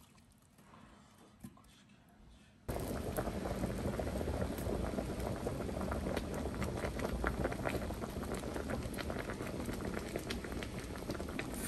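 Near silence for the first couple of seconds, then, about three seconds in, a pot of Korean pork bone soup (gamjatang) starts boiling hard with dense, steady bubbling.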